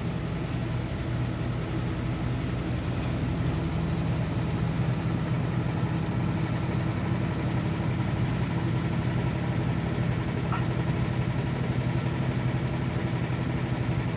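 A steady low hum of a motor running at an even pace.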